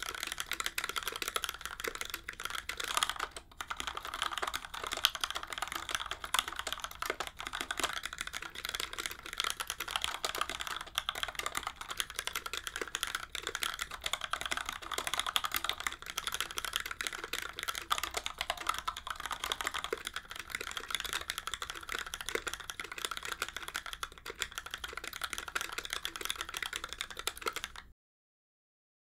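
Continuous typing on an NK65 Entry Edition keyboard with a plastic case, aluminium plate and lubed Gateron Yellow linear switches: first with the silicone dampening slab in the case, then in the second half without it, which sounds hollower. The typing pauses briefly near the start and stops abruptly just before the end.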